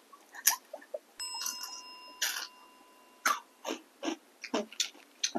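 Close-miked eating sounds: wet mouth clicks and smacks while chewing, a few every second. A faint ringing tone runs under them for about two seconds, starting about a second in.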